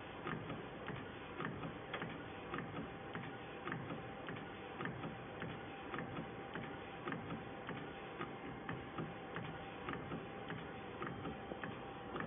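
EraSmart A3 DTF printer printing on roll PET film: the print-head carriage runs back and forth with a steady whine and regular clicks, about two to three a second.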